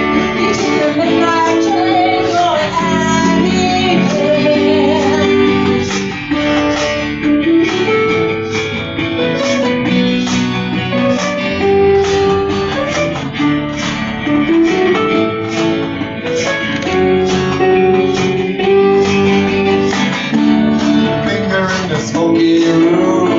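A band plays a song live: strummed acoustic guitars keep a steady rhythm while several voices sing the melody together.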